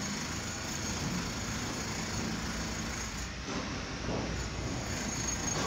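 Stadler FLIRT3 electric multiple unit moving slowly into the stabling tracks: a steady running hum and rumble, with a couple of faint short sweeps about three and a half and four seconds in.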